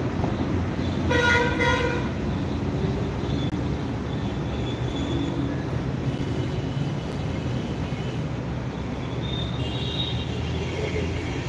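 A single vehicle horn toot, a steady pitched note lasting under a second, about a second in, over a constant low rumble of background traffic.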